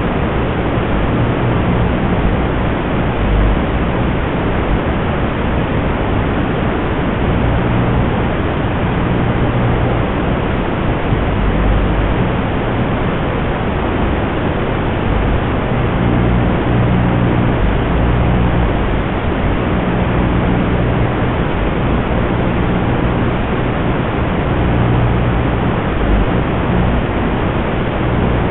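Steady static hiss from an analog FPV goggles' DVR audio track, with a low hum underneath that swells and fades several times.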